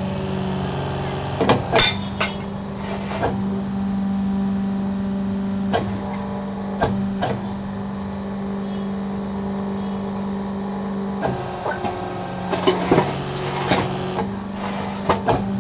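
Fly ash brick press's electric motor and hydraulic pump running with a steady hum, its note shifting about eleven seconds in, with scattered sharp metal clanks from the machine.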